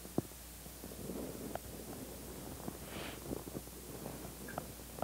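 Quiet indoor room tone with a steady low hum and a few faint scattered clicks, and a brief soft hiss about three seconds in.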